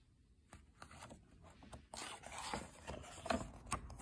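Pages of a picture book being turned and handled: a few light clicks, then about two seconds of paper rustling and scraping with a couple of sharper knocks near the end.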